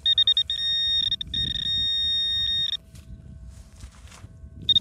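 Metal detecting pinpointer probe beeping in a dig hole: quick high-pitched beeps, then a steady tone held for over a second as it sits on the buried target, then quick beeps again near the end. Soft rustling of soil underneath.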